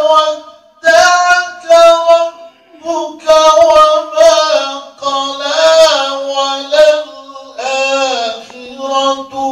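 A man reciting the Quran in melodic tajweed style, singing long, high held notes with ornamented turns into a microphone. The phrases are broken by short pauses for breath.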